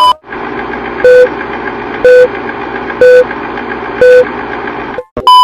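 Film-leader countdown sound effect: a steady projector-like whirring noise with a short beep once a second, four in all, then a longer, higher beep starting just before the end.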